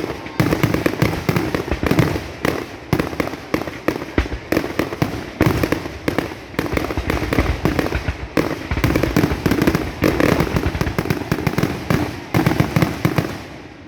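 Fireworks display going off in a rapid, dense barrage, several bangs and crackles a second overlapping one another, breaking off near the end.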